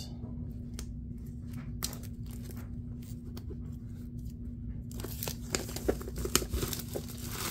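Booster-pack wrappers crinkling as they are handled. There are scattered light ticks at first, then denser crackling and rustling from about five seconds in.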